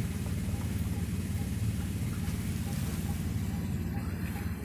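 Wind buffeting the microphone: a steady, flickering low rumble.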